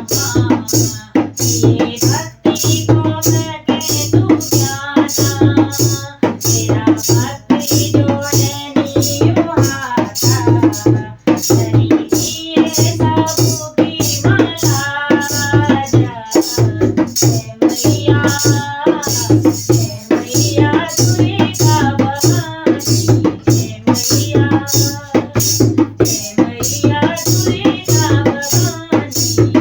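Background music with a steady, quick beat of sharp percussion strokes and a melody over it.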